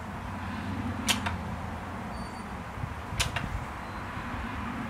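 Sharp clicks in quick pairs, about a second in, around three seconds in and again at the end, from a cartridge glue gun being worked while laying solid-surface adhesive, over a faint low rumble.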